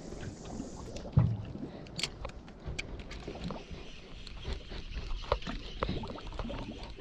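Water lapping against the hull of an inflatable dinghy, with scattered small clicks and knocks and a dull thump about a second in.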